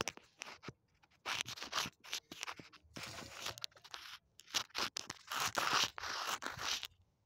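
Handling noise on a phone's microphone: irregular scraping and rubbing as the phone is gripped and moved about, stopping near the end.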